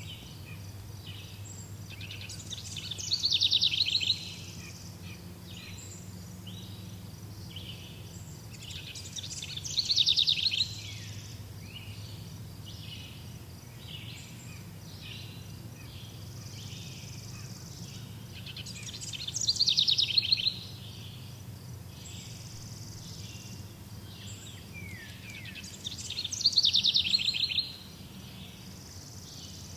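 Songbirds singing: one bird repeats a loud, rapid trilled song phrase about a second long four times, some six to ten seconds apart, among quieter chirps from other birds. A faint steady low hum lies underneath.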